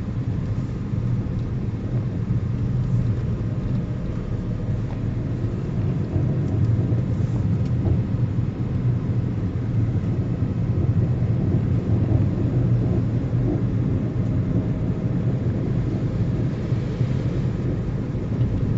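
Steady low rumble of a car driving along a road: engine and tyre noise that stays even throughout.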